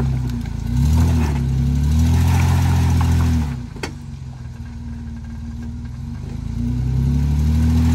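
Lifted four-door Jeep Wrangler's engine revving under load as it crawls up a rock pile: the revs rise about a second in, hold for a couple of seconds and fall back, then rise again near the end. A single sharp knock comes between the two pushes.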